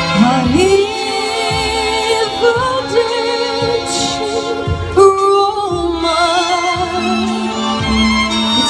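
Female vocalist singing live into a microphone, amplified through a PA, over recorded backing music with a regular bass line. She holds long notes with wide vibrato.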